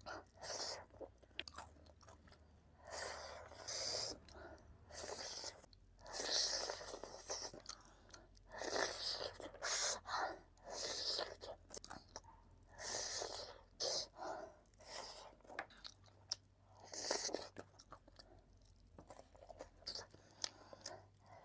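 Close-miked chewing of gilo chatpate, a moist, spicy puffed-rice snack: crunching bites and chews in irregular bursts, with short pauses between mouthfuls.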